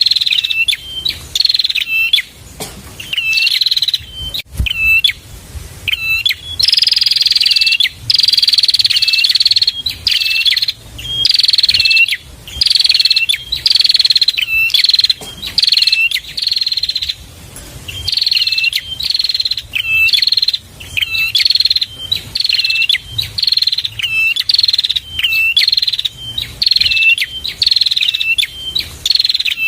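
Prenjak (prinia) song: a fast, repetitive series of loud, high chirps, each a short falling sweep ending in a hooked note. They come about once or twice a second, with a stretch of longer drawn-out notes a few seconds in.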